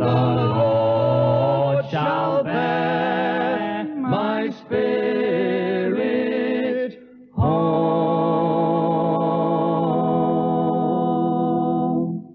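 Music: voices singing together in harmony with vibrato, ending on one long held final chord that cuts off near the end.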